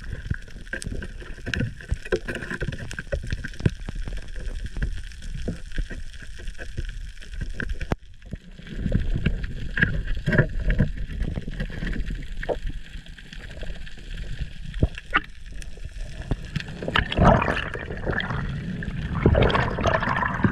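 Underwater sound through an action camera's housing: a constant crackle of sharp clicks over a low water rumble. Near the end it gets louder with the rushing of water as the diver swims up toward the surface.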